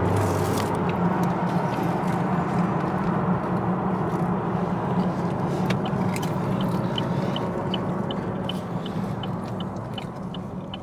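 A car's engine and tyres heard from inside the cabin while driving: a steady low drone with road noise that eases off near the end as the car slows. A light, regular ticking of about three clicks a second joins in the second half.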